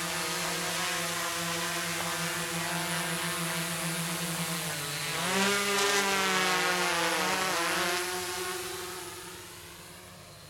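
Quadcopter's four DYS D4215 650kv brushless motors with 10-inch props humming steadily in a low hover. About five seconds in the pitch dips and rises and the hum grows louder and wavers for a few seconds, then the motors wind down and fade out after touchdown.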